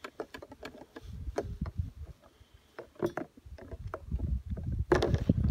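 A metal teaspoon stirring coffee in a mug, clicking irregularly against the mug's sides.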